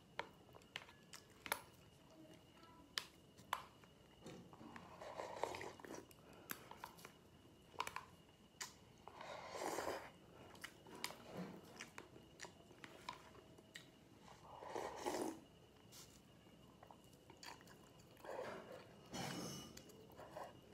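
Close-miked mukbang eating of braised pig colon and cucumber salad: many sharp wet mouth clicks and four longer stretches of chewing and slurping, one of them as soup is sipped from a container about ten seconds in. A faint steady high whine runs underneath.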